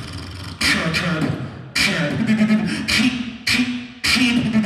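Human beatboxing into a handheld microphone: sharp snare-like hits about every second over a low hummed bass tone.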